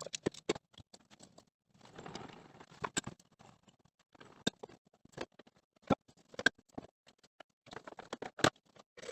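Handheld PVC pipe cutter working through 1.5-inch PVC pipe: a series of irregular sharp clicks and short scraping stretches.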